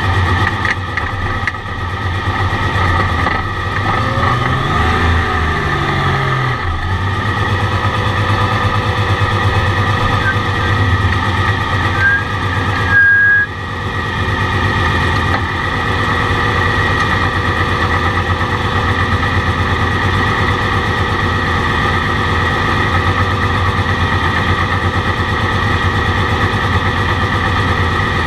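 Porsche 935's turbocharged flat-six idling, heard from inside the cockpit, with the engine note briefly rising and falling a few seconds in.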